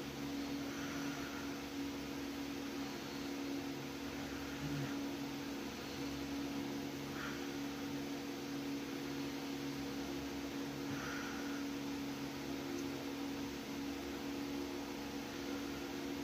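Steady mechanical hum, like a small motor or fan running, with no change throughout.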